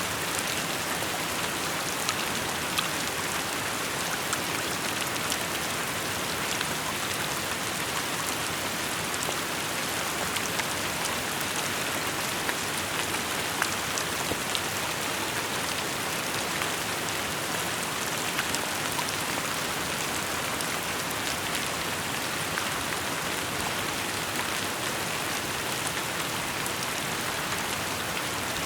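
Steady rain falling, a constant hiss with many small drop impacts scattered through it.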